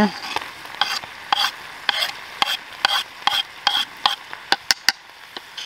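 Spoon and knife clicking and scraping against a cast iron pan as chopped garlic is added and stirred into browned chicken, an irregular run of sharp clicks about three a second, over a faint sizzle of the pan.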